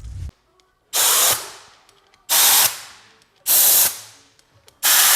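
Four short, loud hissing blasts about 1.2 s apart, each fading away briefly after it cuts off, like pressurised air or spray being let out in quick bursts.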